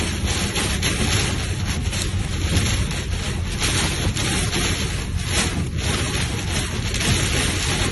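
Heavy storm rain and gusting wind beating on a moving car, heard from inside the cabin as a steady rushing noise with a low rumble underneath.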